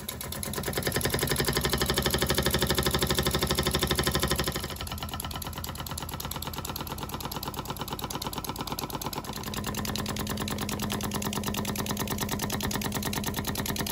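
Small gas-fired model steam engine running fast, its oscillating brass cylinder making a rapid, even beat. The beat drops in level about four and a half seconds in, and a steady hum joins it a few seconds later.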